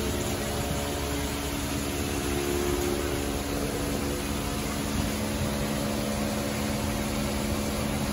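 A steady mechanical hum from a running motor, with a constant low tone that does not change.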